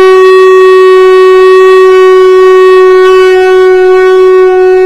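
Shankh (Indian conch shell) blown in one loud, unbroken blast held at a single steady pitch, rich in overtones. It is played in the 'short duration, loud sound' style of conch blowing.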